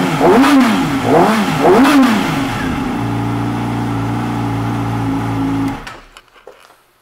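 2012 Yamaha YZF-R6's inline-four engine, breathing through an M4 exhaust, blipped three times, each rev rising and falling quickly. It then settles to a steady idle and is switched off with the ignition key about six seconds in, running down to a stop.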